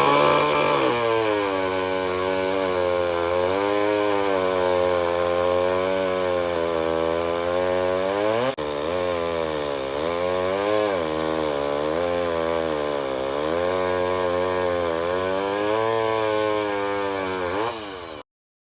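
Vintage gasoline chainsaw running and cutting, its engine pitch repeatedly sagging and climbing back as it loads and revs. There is an abrupt break about halfway through, and it cuts off near the end.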